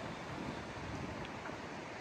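Steady rushing of a rain-swollen mountain stream.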